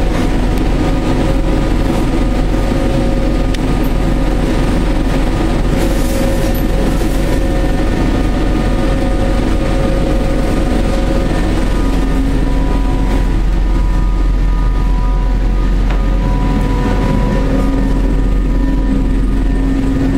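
Bombardier Flexity tram running, heard from inside the passenger cabin: a steady rumble of wheels and drive with several steady hum tones over it.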